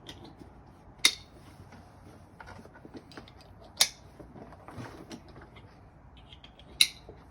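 Clips on a leather tool bag snapping shut: three sharp clicks about three seconds apart, with soft handling noises of the leather bag and tools between them.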